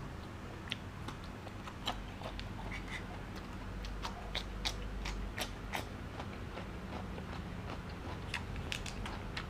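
A man biting and chewing crunchy raw food close to the microphone, mostly a piece of cucumber, with irregular crisp crunches and mouth clicks.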